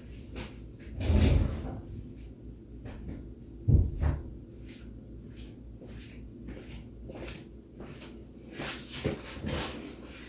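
Clicks and light knocks of parts and tools being handled, with two heavier thumps about a second in and near four seconds in, over a steady low hum.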